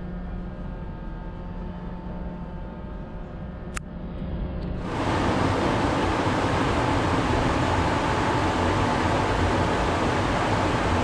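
Steady hum of a cruise ship's ventilation machinery with a few held tones and a single click about four seconds in, then a sudden step up to a much louder, even rushing of air and fan noise.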